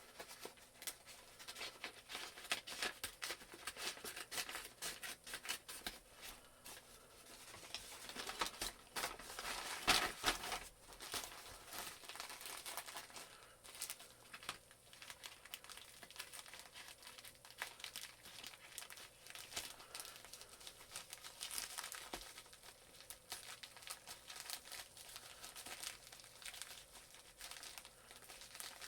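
A mailed package being opened by hand: packaging crinkling, rustling and tearing in quick irregular crackles throughout, with the loudest tear about ten seconds in.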